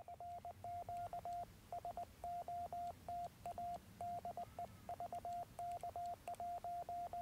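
Morse code from a Yaesu FT-817 transceiver: a single steady tone keyed in dots and dashes, sending a 'CQ SOTA de VK1CT' call for a Summits on the Air activation.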